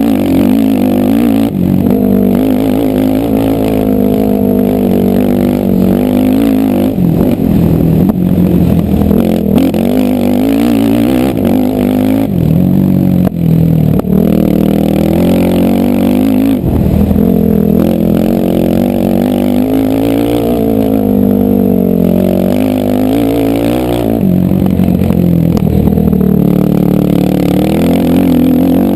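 ATV engine run hard in a harescramble race, its pitch rising and falling as the throttle is worked, with a few brief drops where the throttle is cut.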